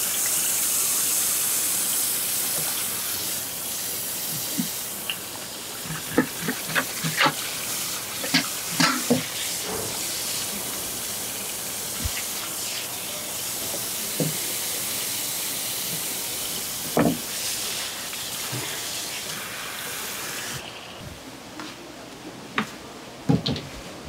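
Tap water running in a steady hiss onto a cutting board while gloved hands rub and rinse strips of shark skin and flesh under it, with scattered wet knocks and slaps from the handling. The water stops about three-quarters of the way through.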